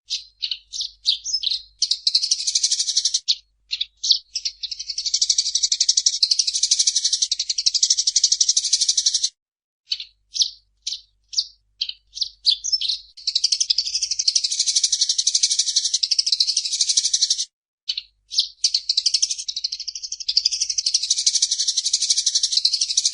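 Eurasian tree sparrow singing: long runs of rapid, chattering chirps broken by short pauses and a few separate single chirps.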